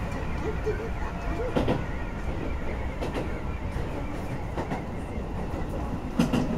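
Shin-Keisei 8800 series electric train running, heard from inside the front car: a steady rumble of wheels on rails, with sharp clacks from the track about one and a half seconds in and again near the end.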